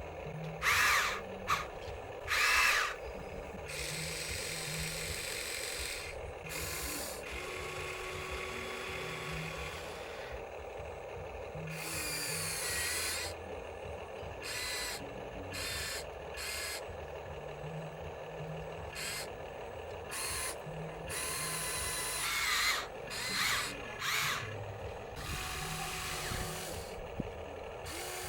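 Small electric motors of a radio-controlled construction model whining in repeated short bursts, some rising or falling in pitch, over a steady lower hum.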